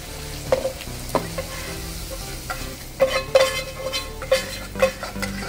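A plastic spatula scraping and knocking against a small nonstick saucepan as hot fried masala in oil is scraped out into a pot of haleem, with a light sizzle. The scrapes and knocks come irregularly, in a cluster about three seconds in.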